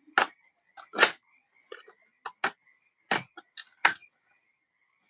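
Plastic snap clips of a laptop's bottom cover clicking as they are worked loose around the edge: about eight sharp, irregular clicks and snaps.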